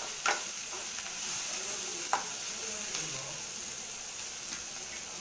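Sliced onions, green chillies and curry leaves sizzling in hot oil in an aluminium pressure cooker on full flame, stirred with a spatula that clinks sharply against the pot twice.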